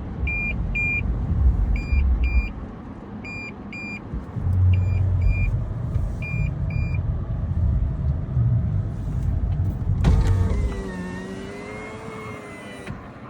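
A car's high warning chime beeps in pairs, about every second and a half, over a low rumble inside a vehicle. About ten seconds in, a power window motor whines for about three seconds and then cuts off suddenly.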